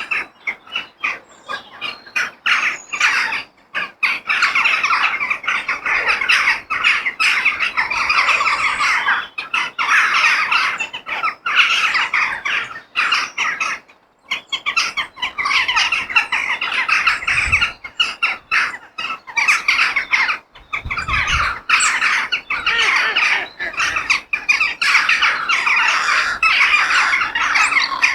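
A flock of crows cawing, many calls overlapping almost without pause, with a brief break about halfway through.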